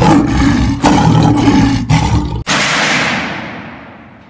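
Loud outro sound effect: a rough, low rumbling noise that breaks a few times, then a sudden crash-like hit about two and a half seconds in whose hiss fades away over the next two seconds.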